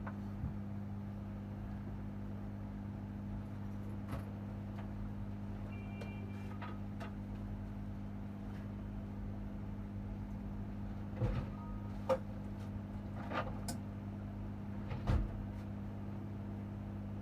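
A steady low electrical hum on a repair bench, with a few small clicks and taps of tools on hard surfaces about two-thirds of the way in.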